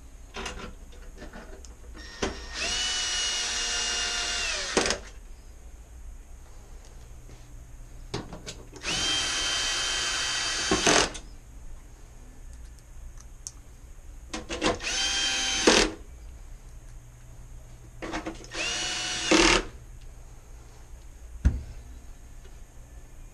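Cordless power screwdriver running in four separate bursts of a steady motor whine, each ending with a sharp click as a screw seats: screws being driven back into the oven door frame. A single knock follows near the end.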